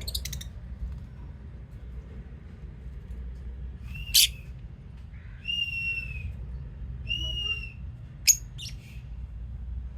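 Lovebirds calling: a few short, sharp, shrill chirps, with two longer whistled calls that rise and fall slightly in the middle.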